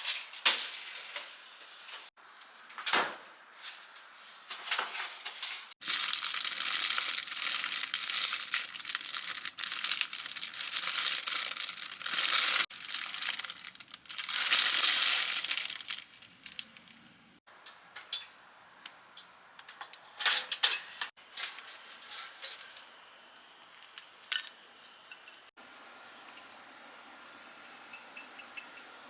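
Kitchen food-prep handling sounds in a string of short cuts: packaging crinkling and tearing, and dishes and utensils clinking.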